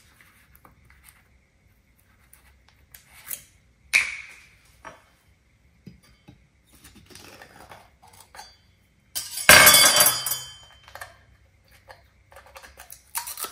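Kitchen dishes and containers being handled: a sharp ringing clink about four seconds in, scattered small knocks, and a louder rough rattling noise lasting about a second a little past the middle.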